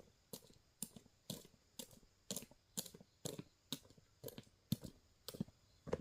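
A steady series of sharp knocks or taps, about two a second, some coming in quick pairs.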